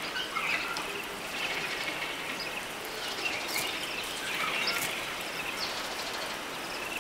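Woodland ambience: birds chirping in short calls, over a steady background hiss.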